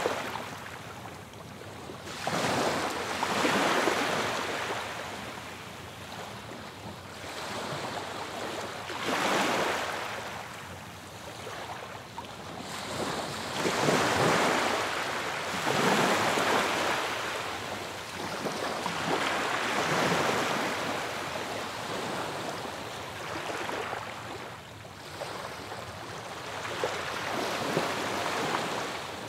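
Ocean surf: waves breaking and washing in, the sound swelling and fading every few seconds.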